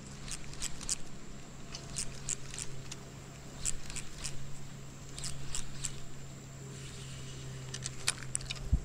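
Spinning reel being cranked to retrieve a lure, giving short clusters of light clicks about every second. There is a single thump near the end.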